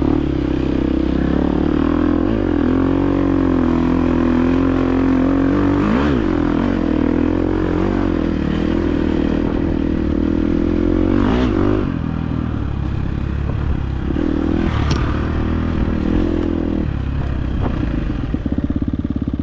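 Dirt bike engine running under load on a trail climb, its pitch rising and falling with the throttle, with three sharp clatters along the way. Near the end the engine settles into a steady, lower note.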